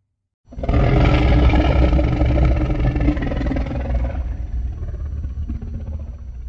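Custom Godzilla roar sound effect: after a brief silence it starts abruptly, a pitched roar over a deep rumble lasting about three and a half seconds, then trailing off into a fading rumble.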